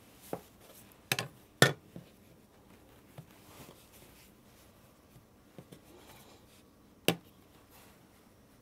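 Metal bench scraper pressed down through a rolled log of biscuit dough, its blade knocking on the wooden butcher-block board as each slice is cut: a few sharp knocks, several close together in the first two seconds and another, loud one about seven seconds in, with fainter taps between.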